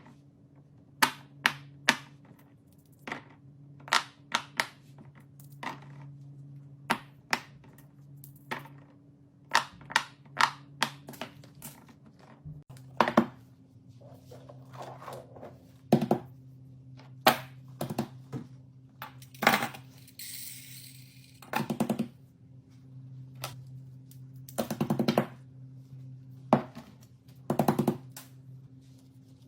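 Fidget toys being pressed and handled, making sharp, irregular clicks and taps, some in quick runs, with a brief rustle about twenty seconds in. A steady low hum runs underneath.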